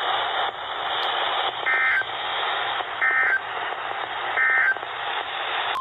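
Weather radio receiver hissing with heavy static, with three short data bursts about 1.3 seconds apart: the EAS/SAME end-of-message code that closes a NOAA Weather Radio warning broadcast.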